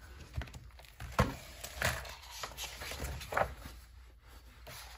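Hardcover picture book being opened and its pages turned by hand: a series of soft taps and paper rustles.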